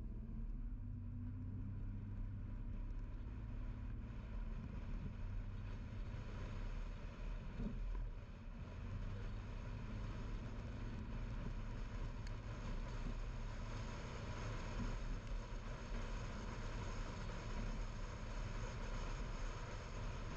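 A car driving along a road: a steady low rumble of engine and road noise, with the tyre-and-road hiss growing louder about six seconds in.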